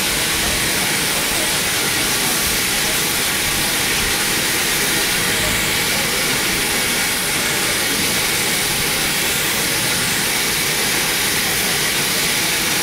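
Great Western steam locomotive hissing steam steadily, at rest close by.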